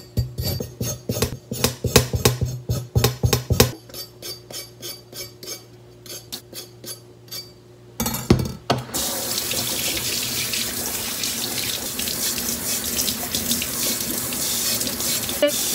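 Back of a kitchen knife scraping the skin off a burdock root, a quick run of strokes several times a second that grows fainter. About nine seconds in, a tap starts running water steadily into a stainless-steel sink.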